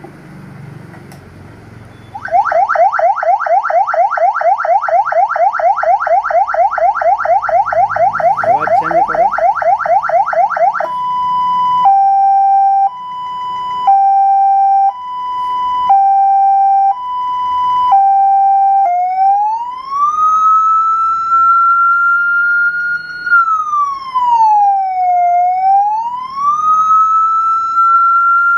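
Electronic siren from an ambulance light bar's built-in 200-watt PA siren amplifier, switched on about two seconds in and stepped through its tones. First comes a rapid yelp of rising sweeps several times a second, then a hi-lo two-tone alternating about once a second, then a slow wail rising and falling.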